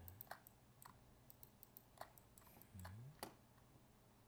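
Faint, scattered clicks of a computer mouse and keyboard, with a brief low hum a little before three seconds in.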